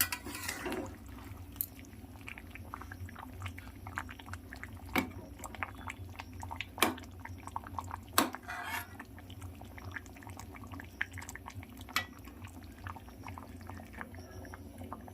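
A cooking utensil clinking sharply against the pan about five times as the curry is checked, among faint small crackling ticks from the chicken curry simmering on a low gas flame, over a low steady hum.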